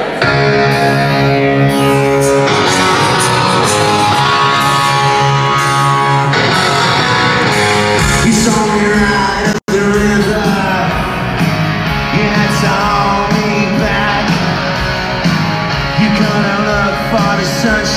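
Live rock band playing loud guitars with singing through an arena PA, recorded on a phone from the crowd. The sound gets heavier in the bass about eight seconds in, and it cuts out for an instant a little later.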